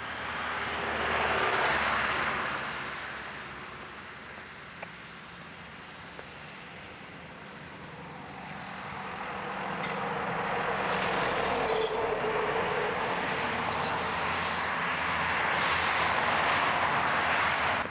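Cars passing on a road: one goes by about a second and a half in, then traffic noise builds again through the second half, with a light hum from a passing vehicle, and cuts off sharply at the end.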